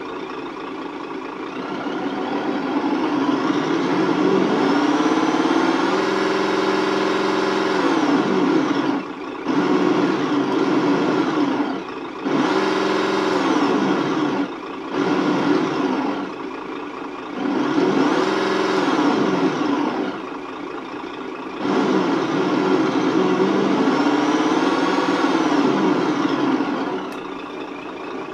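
Team Associated ESS-One engine sound module playing its simulated diesel truck engine: a steady idle revved up and back down about six times as the throttle is worked.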